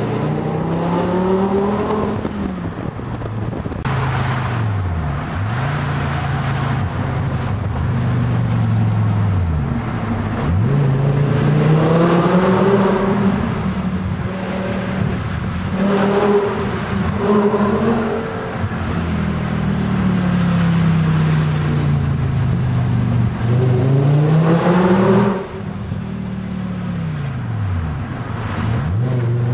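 BMW Z4 roadster engine under way, revving up and falling back again and again as the car accelerates and slows through bends, with a sudden drop in level about 25 seconds in.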